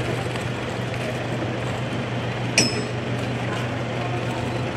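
Steady low hum of an idling vehicle engine under general outdoor noise, with one sharp metallic clink about two and a half seconds in.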